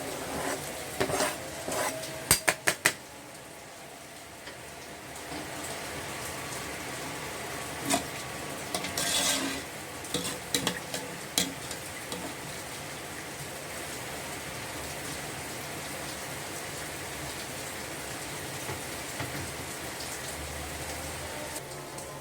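Metal utensil clinking and scraping against cookware, with a quick run of sharp clinks in the first few seconds and more around the middle, over a steady frying sizzle.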